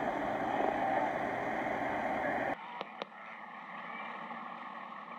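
A steady engine-like drone, cut off sharply about two and a half seconds in. After it comes a quieter outdoor background with two short clicks.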